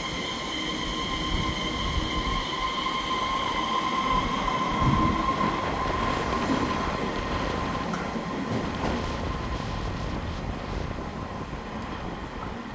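A twelve-car EMU3000 electric express train moving along the platform track, rumbling with a steady high-pitched squeal that fades out about halfway through.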